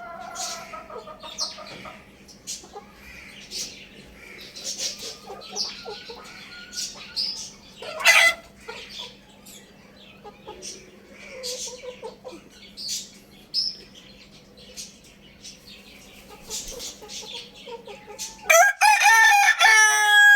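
Chickens clucking and making short calls, with a crow trailing off at the start and a sharp loud squawk about eight seconds in. Near the end a rooster crows loudly for about two seconds.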